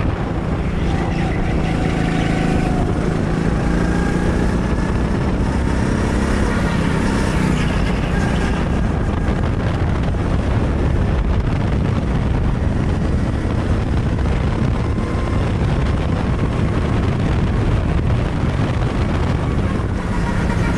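Go-kart engine running at speed around a track, heard from onboard with a dense rumble of the kart and air noise. Its pitch rises and falls over the first several seconds, then it runs flat out as the kart picks up speed.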